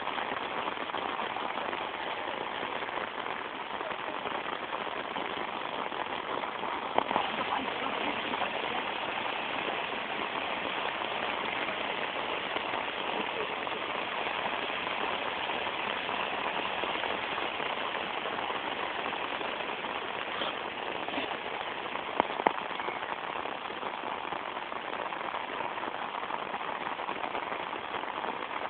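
Heavy rain pouring down steadily, with a couple of brief sharp knocks.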